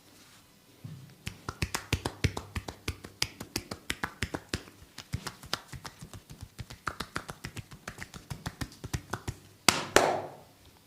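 Rapid run of sharp hand slaps on the body in a percussive massage, about six a second, with a louder, longer slap near the end.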